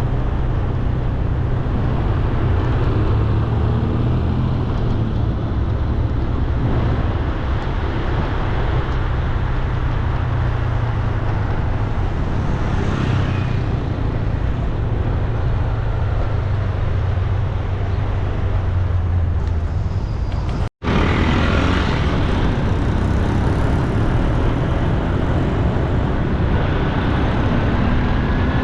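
Steady street traffic: a constant low rumble of motor vehicles running and passing. The sound cuts out for an instant about two-thirds of the way through, then carries on unchanged.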